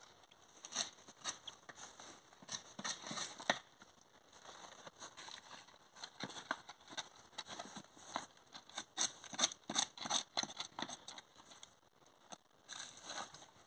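Footsteps on dry pine-needle litter, an irregular run of crackles and crunches, heaviest in two spells, early on and again past the middle.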